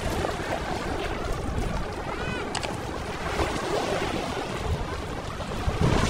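Shallow seawater sloshing and lapping close to the microphone, with wind buffeting it. A brief faint cry about two seconds in.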